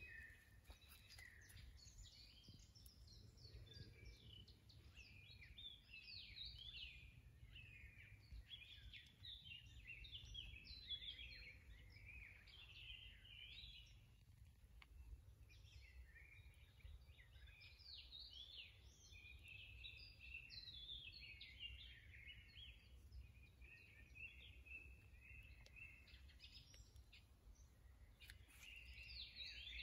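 Faint birdsong from songbirds: runs of quick chirps and warbled phrases coming one after another, over a steady low rumble.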